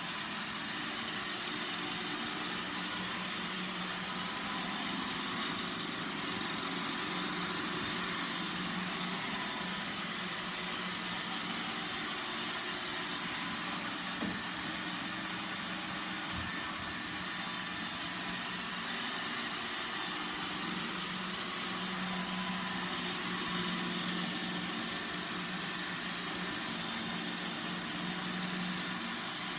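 Roomba 960 robot vacuum running: a steady motor hum and whir from its suction fan and brushes, with one short click about halfway through.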